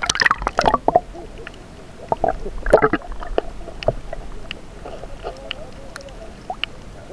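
Water splashing and sloshing around an action camera as it goes under the surface, then muffled underwater sound with scattered sharp clicks.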